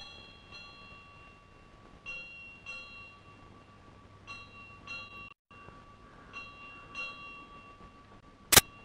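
Temple bell struck in pairs about every two seconds, each strike ringing on with a steady high tone. A sharp click near the end is louder than the bell.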